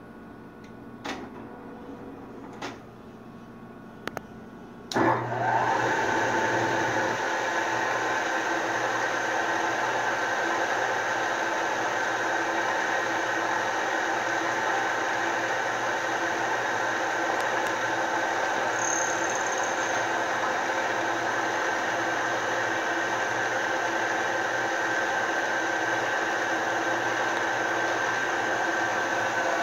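A few light clicks from the mill's handles. About five seconds in, the TREE 2UVR knee mill's spindle motor starts and then runs steadily.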